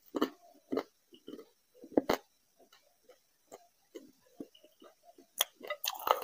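Close-miked eating sounds: wet chewing and lip smacks as short, irregular clicks, with the squish of fingers working rice into fish curry.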